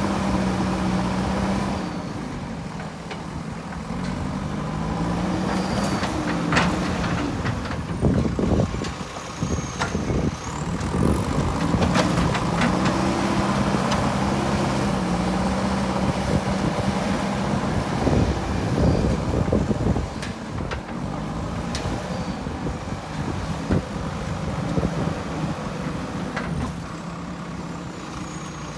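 JCB 3DX backhoe loader's diesel engine running and revving up and down as it works, with sharp knocks now and then.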